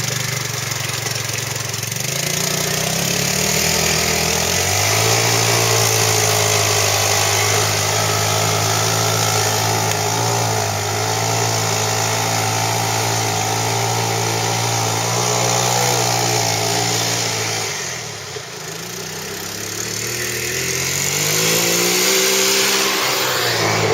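ATV engine revving up and running hard under load, holding a steady high pitch for over ten seconds, easing off about eighteen seconds in, then revving up again near the end.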